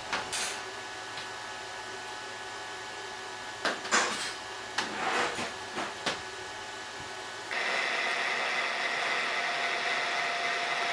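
A few light clinks and rubs of a metal part being handled and set in a vise. About seven seconds in, a milling machine spindle starts running, giving a steady hum with a high whine.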